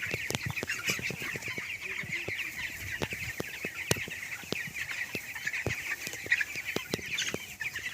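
A flock of 19-day-old broiler chicks peeping continuously, with many irregular sharp taps of beaks pecking at feed.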